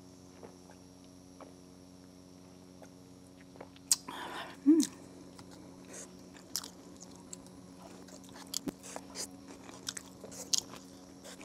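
Close-miked eating: a sharp knock about four seconds in, then from about six seconds a run of crisp clicks and crunches as a plastic fork picks at fries and salad in a takeout container and the food is chewed.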